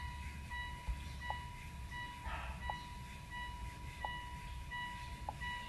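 Electronic beeping: a steady high tone with a shorter beep repeating about one and a half times a second, over a low rumble.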